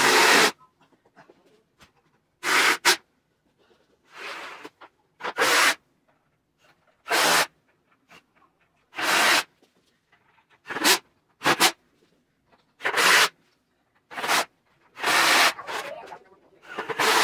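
Cordless drill run in short bursts to drive the bolts of a wooden bench's leg frame: about a dozen runs, each under a second, one every second or two.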